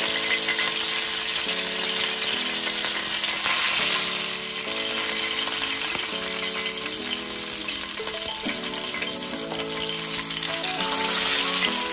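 Flour-coated fish frying in hot oil: a steady sizzling hiss that grows louder near the end. Gentle background music with slow chord changes plays under it.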